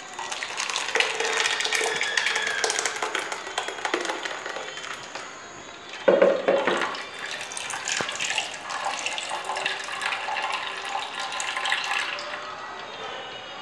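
Liquid pouring and trickling: blended green grape juice streaming through a cloth strainer into a bowl, with a sudden louder gush about six seconds in.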